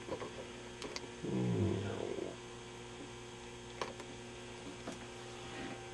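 Steady electrical mains hum made of several held tones, from the running vintage Admiral 20X11 tube television. A short low murmur sounds about a second in, and a few faint clicks come and go.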